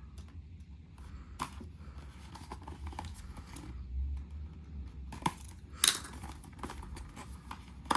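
A cardboard toy box being handled and its bottom opened: scattered rustles and taps with a few sharp clicks, the loudest about six seconds in.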